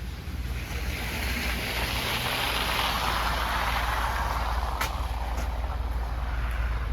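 A vehicle passing on a snowy, slushy street, its tyre hiss swelling and fading over a few seconds, over a steady low rumble of wind on the microphone.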